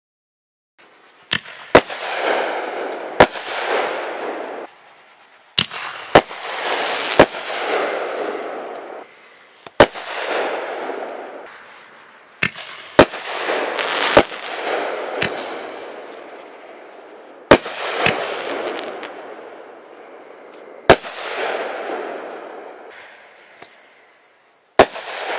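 Caliber Big 1's consumer artillery shells fired one after another: a string of sharp, loud bangs a few seconds apart, each followed by a long fading hiss and crackle.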